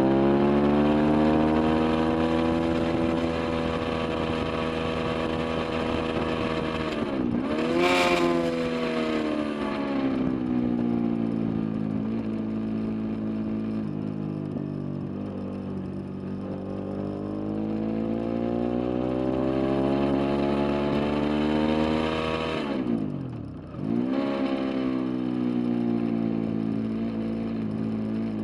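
Sport motorcycle engine at high revs, heard close from the bike itself. Its pitch sags slowly and climbs again as the throttle is eased and reopened, and it dips sharply and comes straight back up twice, about a third of the way in and again near the end.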